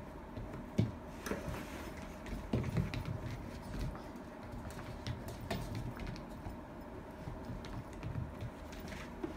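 Two Italian greyhounds scuffling in play: quick clicks and patter of paws and claws on the rug and floor, with a few soft thumps.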